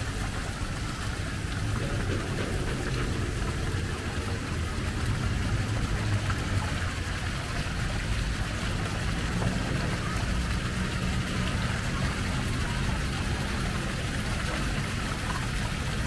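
Steady outdoor city ambience: a continuous low hum of engines under an even wash of noise.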